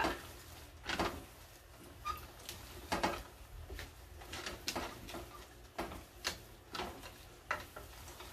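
Wooden spatula stirring a thick sticky rice mixture in a stainless steel pot, scraping and knocking against the pot in short, uneven strokes about every half second to a second.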